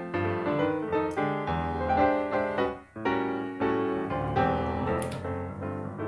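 Background piano music: a steady run of notes with a brief pause about three seconds in.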